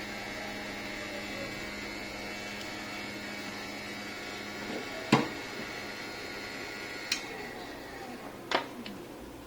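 Hot-air rework station blowing with a steady hum and whine while an SMD IC is soldered back onto a circuit board. The hum cuts out about halfway through. It is followed by three sharp clicks of tools being put down on the bench, the first the loudest.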